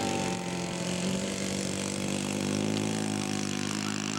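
Engine of a large-scale radio-control model airplane running steadily at a fairly even pitch.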